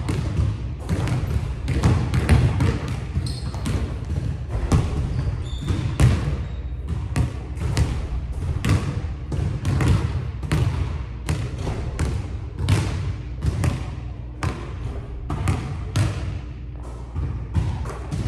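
A basketball being dribbled on a hardwood gym floor, about two bounces a second, each bounce echoing in the large hall.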